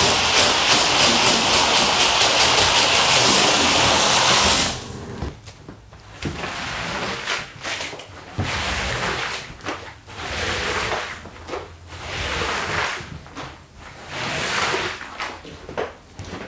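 Water sprayed from a hose onto a soaked rug, a loud steady hiss that cuts off suddenly about five seconds in. Then a long-handled squeegee is pulled across the wet rug, pushing water off in a series of scraping strokes, about one every one to two seconds.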